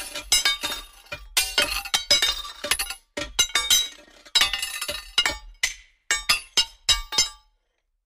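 A stone striking a piece of metal over and over in quick, irregular strikes, each leaving a clanging, dissonant metallic ring. The strikes stop just before the end.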